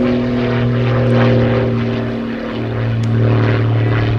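A loud, steady engine drone: a low hum with a stack of overtones above it, holding nearly the same pitch throughout.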